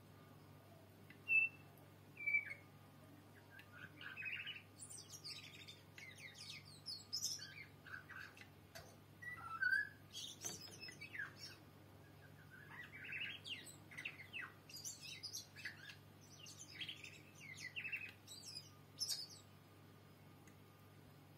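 Tui singing: two short whistled notes, then a long run of varied phrases mixing clear whistles, sharp clicks and very high squeaky notes, stopping near the end.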